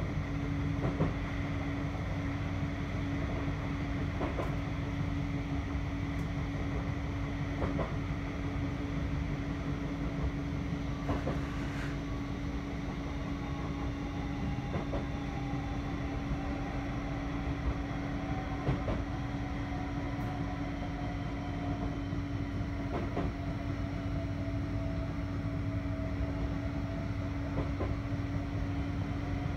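Interior running noise of a Bombardier Flexity 2 tram under way: a steady low rumble with a constant hum and occasional short clicks. Over the second half a faint whine slowly falls in pitch.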